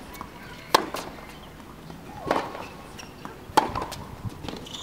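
A tennis rally on a hard court: a ball struck by rackets three times, sharp hits about a second and a half apart.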